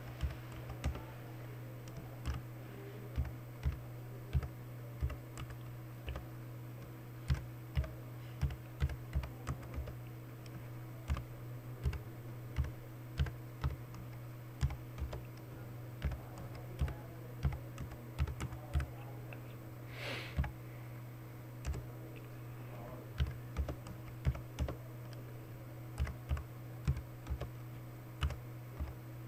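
Typing on a computer keyboard: irregular runs of key clicks, a few a second with short pauses between words, over a steady low electrical hum.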